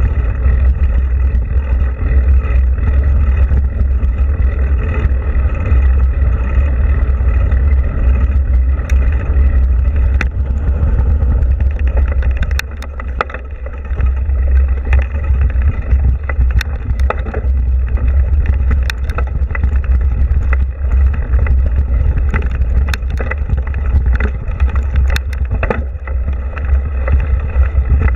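Wind buffeting a mountain-bike action camera's microphone at riding speed: a heavy low rumble, broken by scattered sharp clicks and knocks as the bike and camera mount rattle over a rough, rooty dirt trail. The rumble drops briefly about halfway through.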